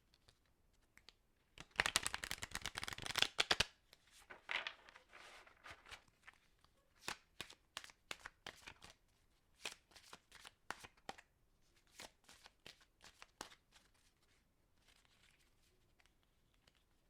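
Playing cards being shuffled: a fast, dense run of card flicks about two seconds in, the loudest part, then a softer run, then scattered single card snaps.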